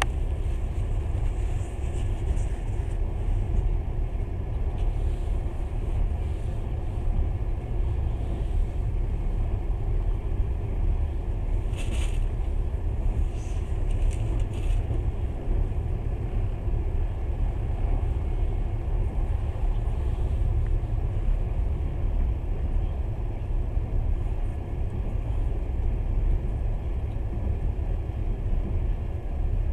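Steady low rumble of a moving passenger train heard from inside the carriage, its wheels running on the rails. About twelve seconds in, a short hiss rises briefly above it.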